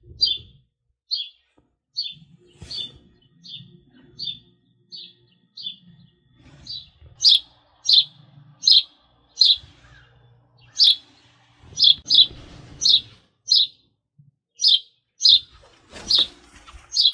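A bird chirping a short, high note over and over, about one and a half times a second, louder from about seven seconds in.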